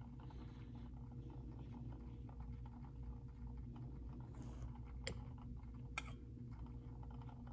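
Quiet room tone with a steady low electrical hum, broken by two faint small clicks about a second apart, around five seconds in.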